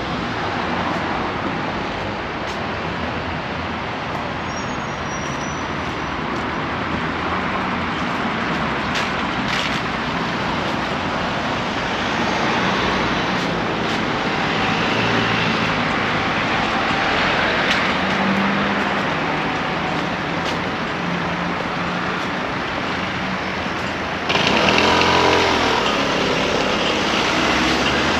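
Steady road traffic noise of cars passing on a busy street. About 24 s in it gets suddenly louder as a vehicle passes close by, its pitch falling as it goes.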